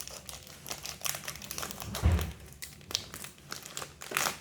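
Packaging crinkling and rustling as a blind-box toy is opened by hand, with a dull thump about two seconds in.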